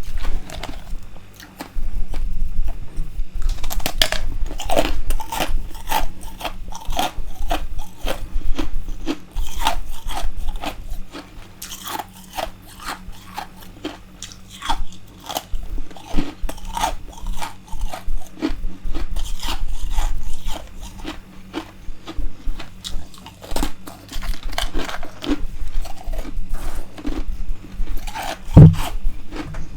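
Close-miked biting and chewing of freezer frost grown with a humidifier: dense crunching in clusters of crisp crackles, with one louder low thud near the end.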